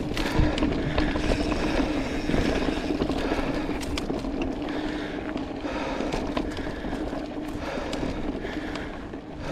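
Mountain bike rolling along a dry dirt singletrack: tyres running over the dirt and the bike rattling and clicking over bumps, over a steady hum.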